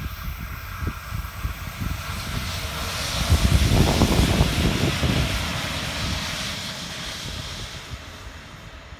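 Two coupled electric locomotives running light past on the line: a low rumble of wheels on rail with irregular thuds, building to a peak about four seconds in and then fading away as they recede.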